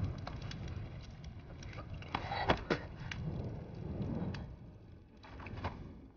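A man whimpering and breathing hard as he struggles out from under heavy cloth and bodies, with rustling, scraping and scattered sharp clicks and crackles.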